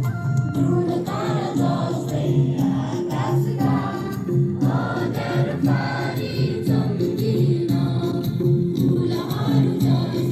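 A group of voices singing a school song in chorus over instrumental accompaniment with held notes.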